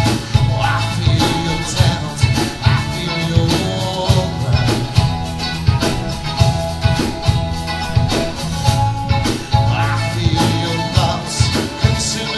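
Live rock band playing a song with a steady beat.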